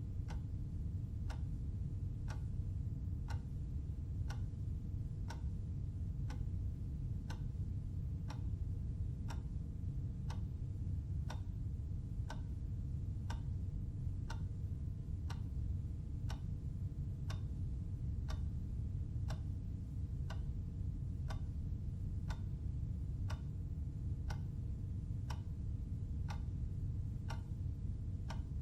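Clock ticking steadily, about one tick a second, over a constant low hum.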